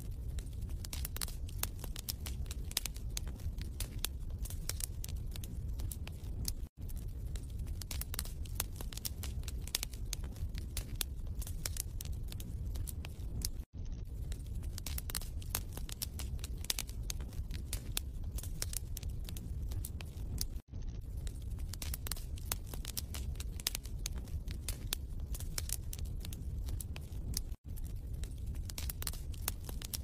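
Wood fire crackling in a fireplace: a steady low rumble under dense snaps and pops. The sound cuts out for a moment about every seven seconds.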